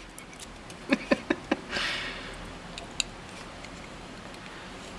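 Plastic support material being picked and scraped off a 3D-printed part with a hand tool: a quick run of four sharp snaps and clicks, a short scrape, then one more click.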